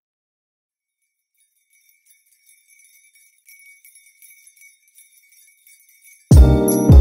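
Background music changing tracks: a couple of seconds of silence, then a faint, high bell-like tinkling, then a full music track comes in loudly about six seconds in.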